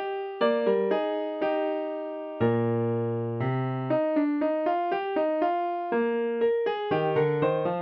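Piano played back from notation software: a two-part counterpoint in E-flat major in 3/4, with running eighth-note lines in both hands. About two and a half seconds in, the piece returns to its opening with a held half-note chord, then the running lines start again.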